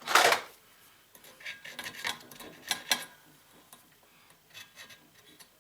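Scratch test on a small copper spring: a metal tool scraping and clicking against the spring in short strokes, a louder scrape right at the start, then a run of short scrapes about two seconds in and a few fainter ones near the end. The scratch bares the metal, which shows it to be copper.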